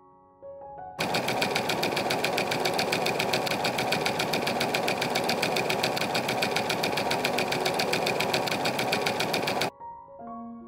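Electric domestic sewing machine stitching fabric at a steady, rapid even rhythm. It starts about a second in and stops abruptly near the end.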